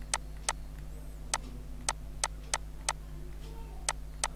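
Computer mouse button clicking: about nine sharp single clicks at uneven spacing, each starting or ending a stroke as words are handwritten with the mouse. A steady low electrical hum runs underneath.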